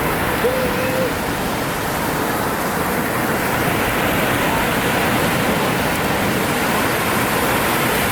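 Steady rushing of small ocean waves breaking and washing up the sand, with a brief high whistling note about half a second in.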